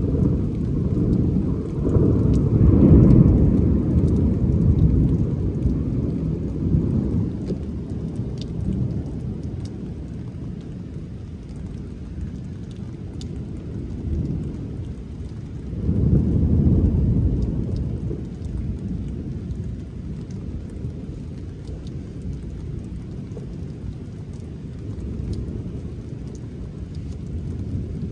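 Thunder rumbling over falling rain: a long rolling rumble swells about two to four seconds in and a second one about sixteen seconds in, then fades back to the steady rain.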